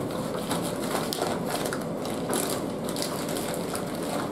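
Cake mixture being stirred by hand and with a wooden spoon in a large plastic mixing bowl: irregular scraping, squishing and knocking strokes.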